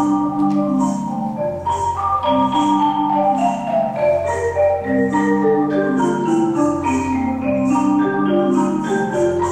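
Percussion ensemble playing music on marimbas: many struck, ringing mallet notes over low bass notes that change about every two seconds, with a soft high swish keeping a steady pulse.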